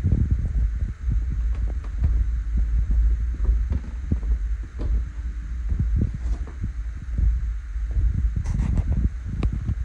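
Low rumble and irregular soft thuds of a handheld phone being carried through a room: footsteps and handling noise on the microphone, with a few sharper clicks near the end.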